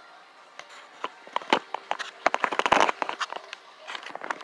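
Footsteps and the rustle and knocks of a hand-held phone being carried while walking, with a quick cluster of clicks and knocks about two to three seconds in.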